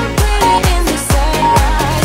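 Electronic dance-pop background music with a steady kick drum, about two beats a second, under a synth melody.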